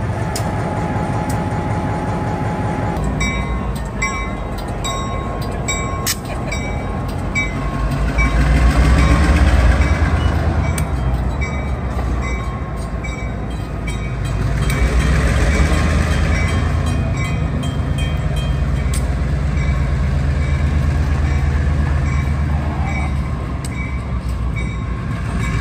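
EMD GP15-1 diesel locomotive's 12-cylinder two-stroke engine running as the locomotive moves its train along the track, a heavy rumble that swells twice. A bell rings steadily about twice a second through the first half.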